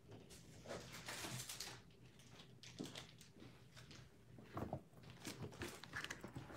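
Faint rustling and a few light knocks and ticks of someone rummaging off to the side for a pack of card sleeves.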